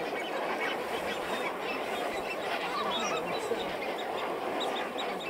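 A large flock of flamingos calling: many overlapping calls that run together into a dense, steady chatter.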